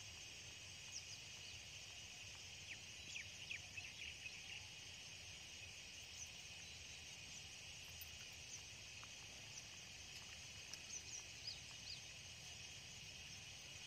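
Faint outdoor ambience: a steady high insect chorus, with scattered short bird chirps, a cluster of them a few seconds in and a few more near the end.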